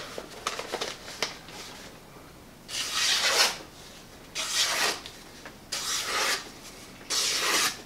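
Four slow slicing strokes of a freshly sharpened leaf-spring steel cleaver cutting through a sheet of paper, each a crisp swish lasting most of a second. They are a sharpness test of the newly honed edge.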